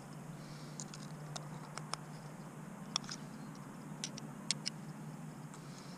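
Oyster knife clicking and scraping against an oyster's shell while it is shucked: a scattered string of small, sharp clicks.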